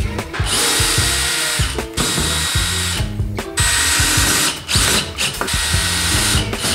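Cordless drill running in several bursts of a second or so, with short pauses between, as it works into a large old timber beam. Background music plays underneath.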